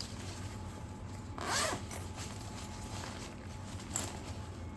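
Zipper on a Pacsafe Metrosafe LS120 sling bag being worked by hand: one loud zip stroke about a second and a half in and a short one near the end, with light handling noise of the bag between.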